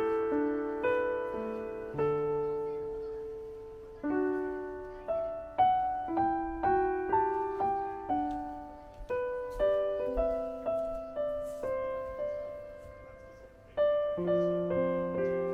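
Gentle background piano music: a slow melody of single notes and chords, each struck and left to fade.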